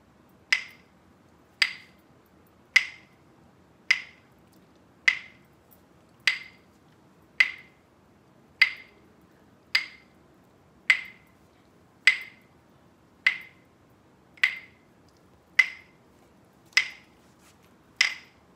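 Pair of wooden rhythm sticks struck together to keep a steady beat: sixteen sharp, slightly ringing clicks, evenly spaced about one a second, the count for a 4/4 rhythm-reading exercise.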